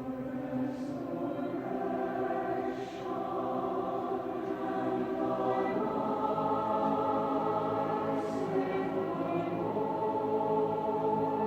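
Choir singing held chords a cappella, the voices swelling louder about halfway through.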